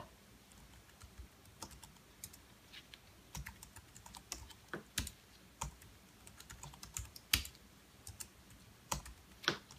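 Keys of a computer keyboard being typed at an unhurried, uneven pace, a password being entered, with a few harder keystrokes standing out.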